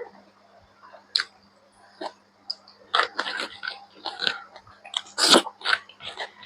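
A person chewing pork close to the microphone, with irregular wet mouth clicks and smacks, and one louder smack a little past five seconds in.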